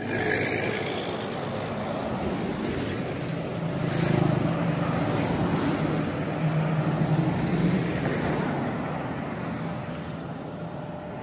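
Road traffic passing: a steady rush of vehicles, with one engine swelling louder as it passes close between about four and eight seconds in.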